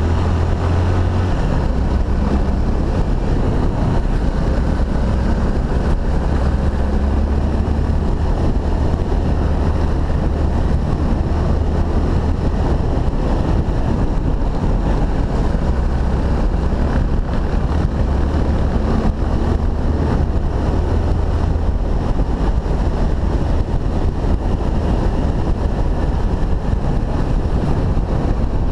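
Honda XRE300's single-cylinder four-stroke engine running steadily while riding, as a low hum, with heavy wind noise on the camera microphone.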